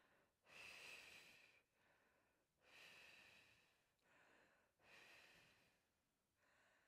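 A woman's faint, slow breaths close to the microphone: three long breaths about two seconds apart, with fainter ones in between.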